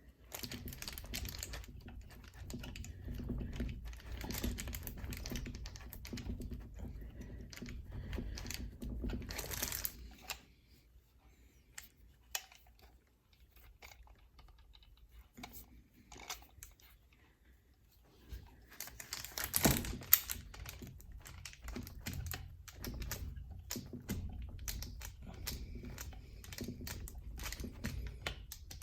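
Hands and small tools working the old trigger guard off an AR-15 lower receiver: a busy run of small clicks, taps and rustling. A quieter stretch falls in the middle, and a sharp louder click comes about twenty seconds in.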